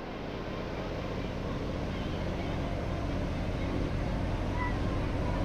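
Steady outdoor background rumble, the mixed noise of the surroundings, fading up gradually, with a few faint short high calls or voices near the end.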